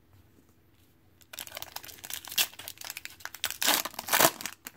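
Foil wrapper of a Panini Prizm football card pack crinkling and tearing as it is ripped open by hand, starting about a second in and loudest near the end.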